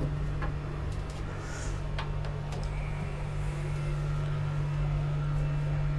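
Steady low mechanical hum of machinery running aboard the yacht, with a few soft knocks of footsteps going down the stairs.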